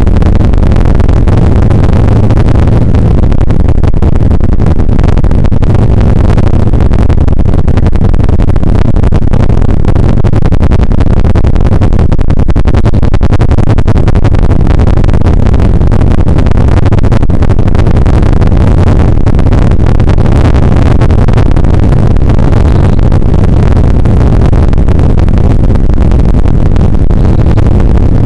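Bell UH-1 Huey helicopter in flight, heard from inside its cockpit: the rotor and turbine engine make a loud, steady drone, heaviest in the low end.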